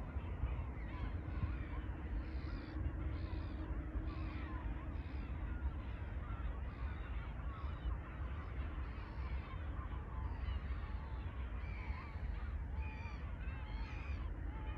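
A flock of birds calling over the lake at night: many short, overlapping calls repeating again and again, with a few sharper calls near the end, over a steady low wind rumble on the microphone.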